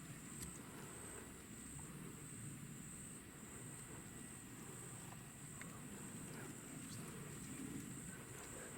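Insects trilling: one steady, high-pitched shrill that pulses slightly and evenly, over a faint low outdoor rumble, with a few light ticks.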